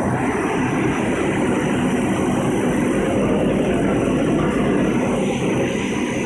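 Dog food extrusion production line running: a steady, loud machine drone with a faint low hum.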